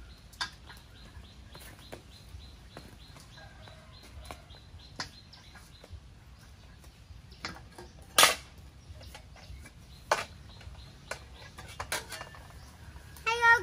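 Scattered knocks and clatters of a metal wok and a plastic basket being handled and set down on a portable gas stove, the loudest about eight and ten seconds in. A bird chirps in a steady series over the first half. A child's voice starts at the very end.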